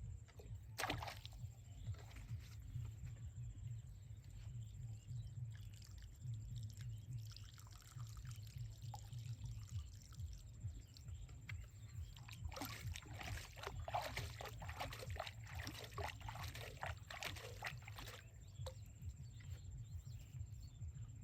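Water splashing and sloshing: a single splash about a second in, then a run of quick, irregular splashes from about halfway through that stops a few seconds before the end.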